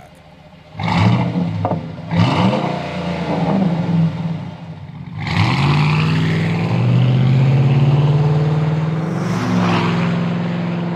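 Ford F-150 V8 through a Flowmaster Outlaw cat-back exhaust with a Super 10 Series muffler. The engine is revved sharply twice, about one and two seconds in, then pulls hard under acceleration from about five seconds in, rising in pitch.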